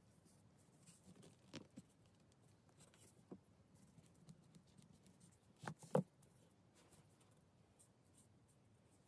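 Quiet handling of small brass and steel parts being fitted together by hand: faint scattered ticks and rubbing, with two sharper clicks close together about six seconds in.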